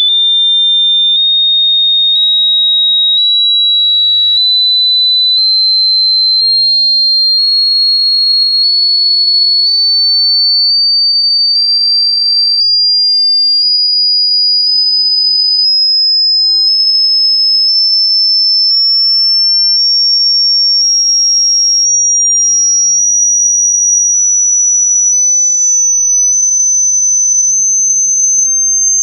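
Hearing-test sine tone: a loud, pure, high-pitched tone that climbs in small steps about once a second, growing steadily shriller.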